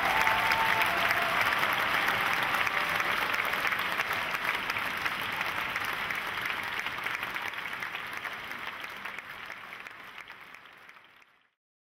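Large concert-hall audience applauding, a dense clapping that fades out gradually over the last several seconds until it stops.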